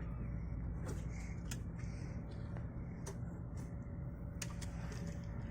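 Steady low rumble of the inside of an ICE high-speed train carriage, with a faint steady hum and a few light clicks and knocks.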